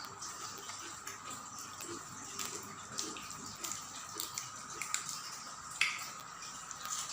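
Eating sounds: scattered wet clicks and smacks of chewing, with one sharper click near the end, over a faint steady background tone.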